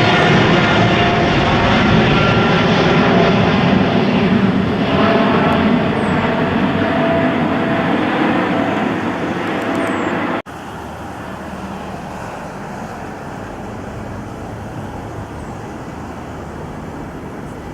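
Jet airliner's engines running loud as it passes, a dense rumble with steady whining tones that eases slightly. About ten seconds in the sound cuts off abruptly to a quieter steady rumble.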